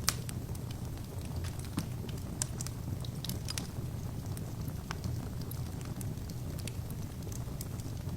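Wood fire burning in an open fireplace: a steady low rumble of the flames with scattered sharp crackles and pops from the burning logs, the loudest pop just at the start.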